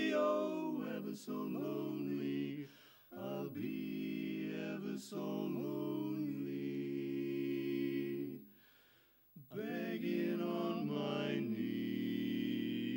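Male barbershop quartet singing a cappella in close four-part harmony, holding long sustained chords. The singing breaks off briefly twice, the longer break lasting about a second roughly two-thirds of the way through.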